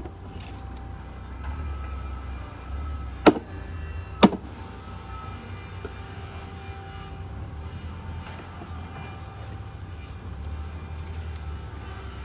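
Two sharp wooden knocks about a second apart as a package of honey bees is bumped down against the hive, knocking the cluster to the bottom of the box, over a steady low rumble.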